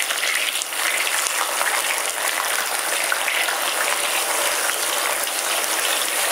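Fresh mushrooms deep-frying in hot oil: a steady, dense sizzle and crackle.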